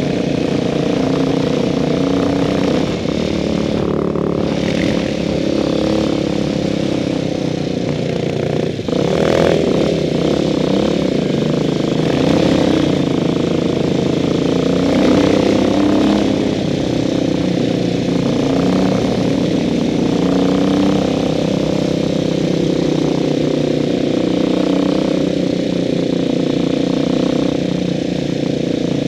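Dirt bike engine running steadily while riding, recorded from on the bike. Its note shifts a little with the throttle, with a brief drop and pick-up about nine seconds in.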